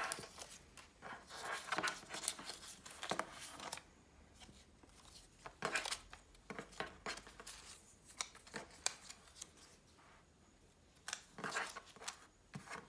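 Small paper cards being picked up, slid and stacked by hand on a wooden tabletop: irregular rustles, light scrapes and soft taps, busiest in the first few seconds and again near the end.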